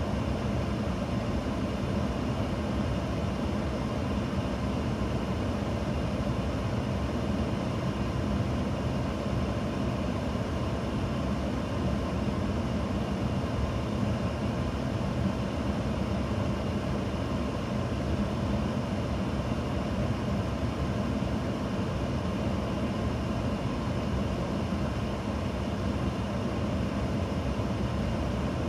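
Steady whoosh of a Skoda Fabia's cabin heater blower, with the 1.0-litre three-cylinder engine idling underneath. With the blower on at idle the coolant temperature falls, which the owner puts down to a poor thermostat.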